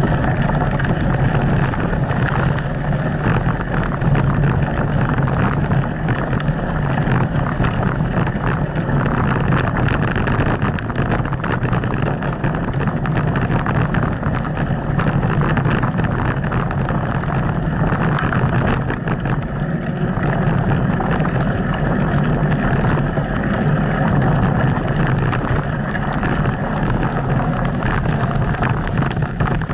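Steady rushing, rumbling ride noise from a camera carried on a mountain bike riding a wet, muddy track. Wind on the microphone mixes with the tyres rolling through mud and puddles and a constant fine rattle from the bike over the rough ground.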